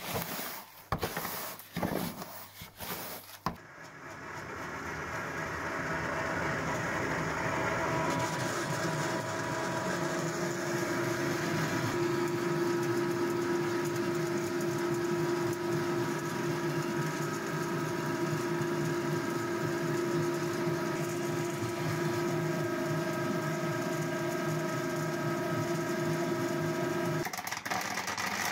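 A few brief rustles and knocks of the chestnut-chip and coffee-ground mix being handled, then a ring-die pellet mill starts up and settles into a steady run with a hum of several level tones, compressing the mix into pellets. The hum's tones stop shortly before the end.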